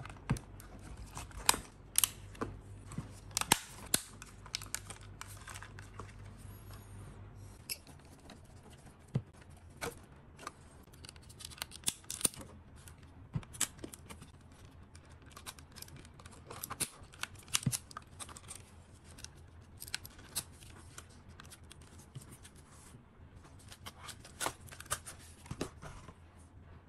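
Irregular clicks and snaps of the DJI Mini 3 Pro's plastic shell being pressed and fitted together by gloved hands, with handling noise between them.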